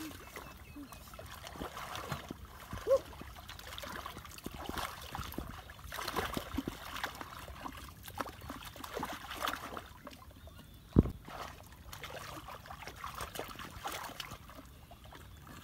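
Shallow muddy water sloshing and splashing irregularly as people wade and grope through it with their hands, with one sharper splash about eleven seconds in.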